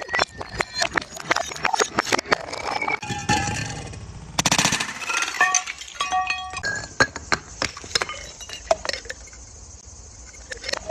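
Glass bottles clinking and breaking in quick succession: sharp cracks, several followed by a short ringing glass tone. A fast rattle comes about four seconds in, and the hits thin out near the end.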